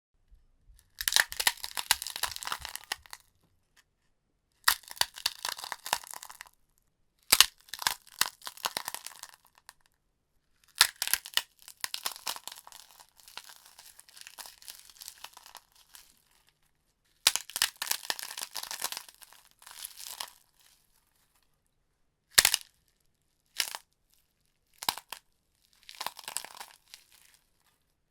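A run of gore sound effects played one after another with silent gaps between them: tearing and crunching sounds of the kind used for ripping flesh and breaking bone. Several last a second or more, and three short single snaps come near the end.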